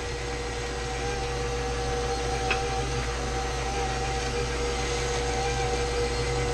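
Electric stand mixer running steadily on low, a motor whine with a steady hum. One light click about two and a half seconds in.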